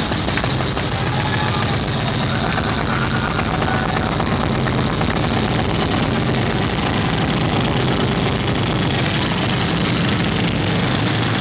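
Nightclub crowd cheering over loud electronic dance music, heard as a dense, steady wash of noise with no clear beat.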